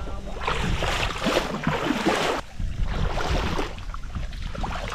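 Footsteps wading through shallow water and soft mud, sloshing in two long swishes, over a steady low wind rumble on the microphone.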